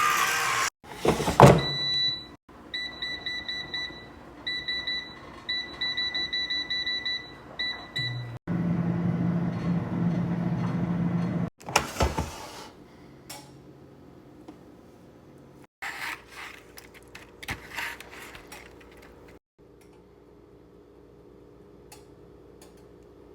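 Air fryer's control panel beeping in a quick series of short, high beeps as it is set, then its fan running with a steady low hum for a few seconds, followed by scattered clicks and knocks of handling.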